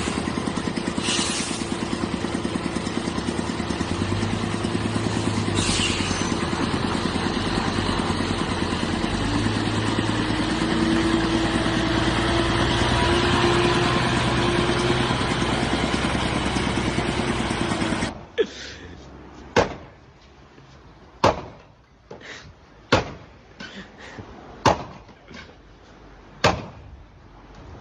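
Engines of a heavy truck and a small farm tractor running steadily. Then the sound cuts to a quiet background broken by about ten sharp knocks, roughly a second apart.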